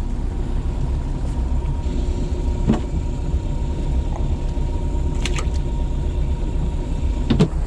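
Boat motor running steadily at trolling speed, a constant low rumble, with a few brief knocks on the boat.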